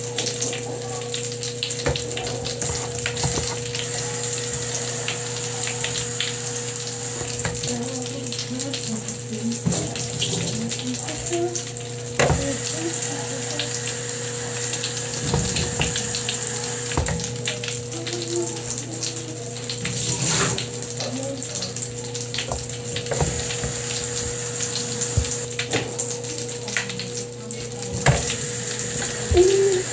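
Bath crackles popping and fizzing in water: a continuous fine crackle of tiny snaps, under a steady low hum.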